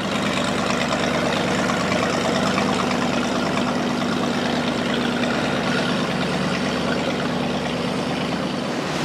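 Inboard engine of a red go-fast speedboat running steadily at low speed, a constant deep hum.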